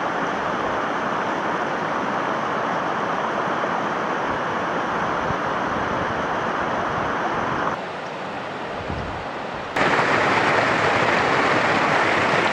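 Rushing river water pouring over a low rock ledge in small cascades, a steady hiss of falling water. It drops away for a couple of seconds about eight seconds in, then comes back louder, close to the foaming cascade.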